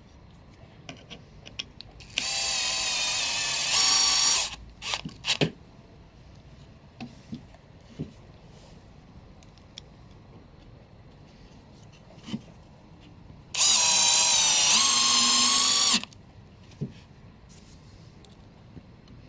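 Cordless drill-driver driving wood screws into plywood: two runs of a whining motor, each about two seconds long, the first speeding up near its end. Small clicks of handling the screws and parts come between the runs.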